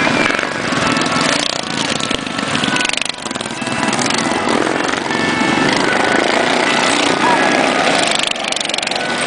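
Racing kart engines running at speed as karts race around the dirt oval, with a brief dip about three seconds in.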